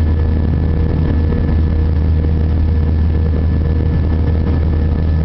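Airbus A320-200 cabin noise in flight from a seat over the wing: the jet engines and airflow make a steady low drone, with a few faint steady whining tones above it.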